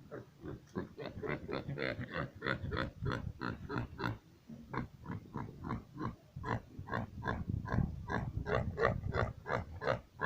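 Pig grunting over and over in quick short grunts, about three or four a second, keeping up a steady rhythm.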